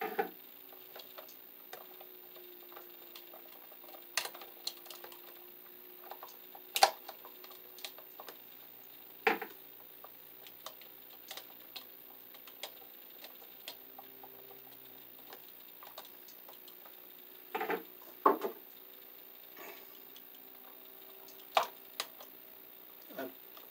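Scattered sharp clicks and taps from working a wall outlet by hand: the wire being shaped with pliers and hooked under the outlet's terminal screw, and a screwdriver turning it. The clicks are irregular and spread out, a few of them louder, over a faint steady hum.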